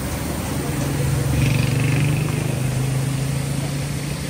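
A motor vehicle's engine running close by: a steady low hum that swells to its loudest about a second and a half in, then eases off.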